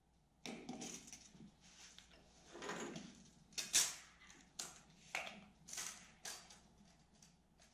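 Pencil scratching layout marks on a wooden workbench top, mixed with the small clicks and taps of a tape measure being handled: a string of short scratchy strokes, one longer stroke near the middle.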